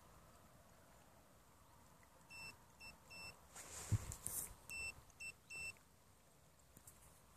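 About eight short, high electronic beeps in an uneven pattern from the bait boat's electronics, starting a couple of seconds in. A single thump and a brief hiss come near the middle, the thump being the loudest sound.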